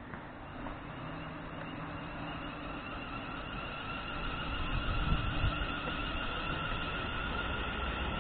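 London Midland Class 350 Desiro electric multiple unit pulling away from the platform, its traction motors whining in two steady tones over a low rumble, growing louder as it gathers speed. A couple of low thumps come about five seconds in.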